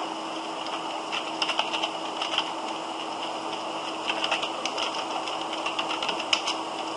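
Computer keyboard typing: keys click in quick runs about a second in and again around four seconds in, with a few last clicks near the end, over a steady background hiss.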